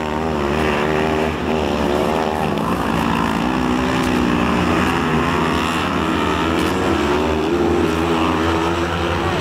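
Several 500 cc kartcross buggy engines racing together, their overlapping notes rising and falling as the drivers accelerate and lift through the bends.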